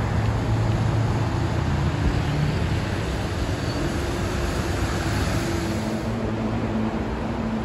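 Steady city road-traffic noise, with a low engine hum that shifts in pitch as vehicles pass.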